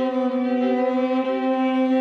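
String quartet of two violins, viola and cello playing a contemporary classical piece: steady held notes over a drone, with one middle voice repeating a short note pattern that comes and goes about every half second.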